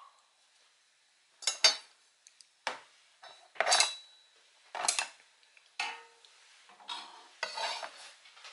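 Kitchen utensils clattering on a cutting board: a run of separate knocks and clinks as chopsticks and a chef's knife are picked up and set down, starting about a second and a half in, with a longer scraping clatter near the end.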